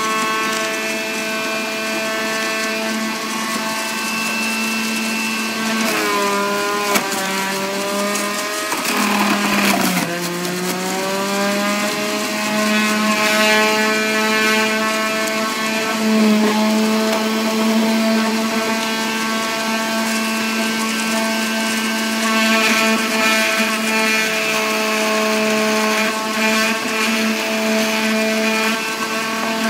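Electric centrifugal juicer's motor running with a steady high whine. Its pitch sags twice, about six and nine seconds in, as produce is pushed down the feed chute and loads the spinning blade, then climbs back to speed.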